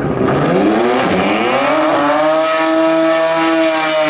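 Drag race car engine at full throttle, its pitch climbing steeply through the first two seconds and then holding high, easing down slightly near the end.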